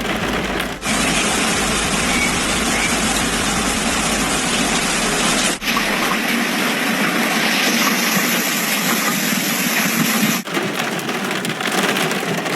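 Heavy hail and rain pounding down as a dense, steady noise, in several clips joined by abrupt cuts about a second in, halfway through and near the end.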